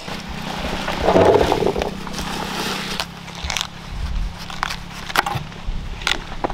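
Kitchen knife cutting into a head of cabbage on a wooden board: a crunchy slicing through the leaves, then a few sharp clicks from the blade, over a low steady hum.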